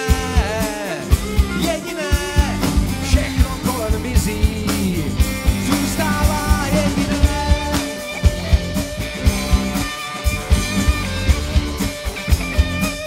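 Rock band playing an instrumental break: a lead electric guitar solo on a Stratocaster-style guitar, with bent and wavering notes, over a steady drum beat and bass.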